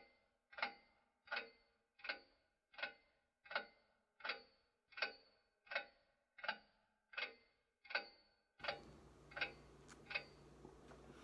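Ticking-clock sound effect: sharp, evenly spaced ticks, about four every three seconds, each with a short ring. The ticks stop near the end.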